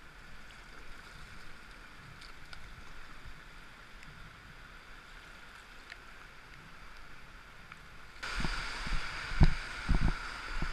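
Kayak paddled slowly along a river bank: a steady hiss of flowing water with a few faint paddle ticks. About eight seconds in the sound turns suddenly louder, with heavy low knocks and rustling as the kayaker is out on the grassy bank.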